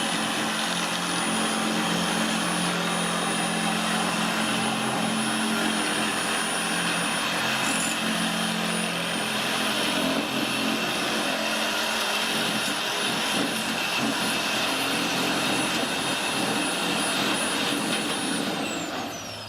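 A machine running steadily, a broad even noise with a thin high whine. Near the end it fades and the whine drops in pitch as it winds down.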